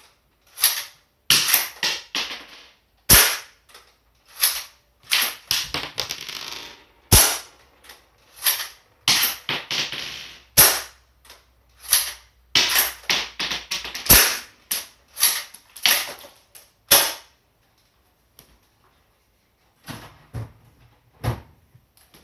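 Airsoft sniper rifle being shot and worked again and again: a rapid run of sharp cracks and mechanical clacks for about seventeen seconds. After a pause, a few softer handling knocks come near the end.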